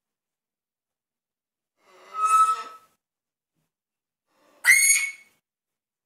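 African grey parrot whistling twice: a wavering call lasting about a second, two seconds in, and a shorter, sharper whistle that sweeps upward near five seconds in.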